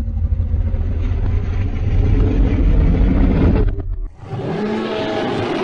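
Monster sound effects: a loud, deep rumble that breaks off a little before four seconds in, then, after a brief gap, a brighter hissing sound with faint tones running through it.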